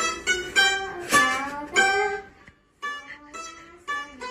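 Background music: a light melody picked on a plucked-string instrument, a run of quick notes with a short pause about two and a half seconds in.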